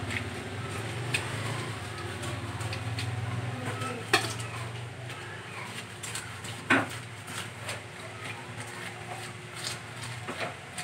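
Cleaver blade scraping the scales off a whole carp on a cutting board: scattered scrapes and sharp ticks, the loudest about four seconds in and again near seven seconds. A low steady hum runs underneath, strongest in the first four seconds.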